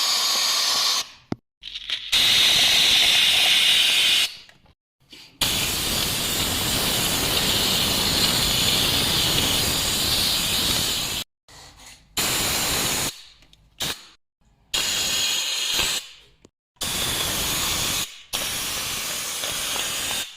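Pneumatic blow-and-suction dust gun hissing with compressed air in repeated bursts as the trigger is pulled and let go. There is one long burst of about six seconds, and the others are short. Each burst starts and stops sharply.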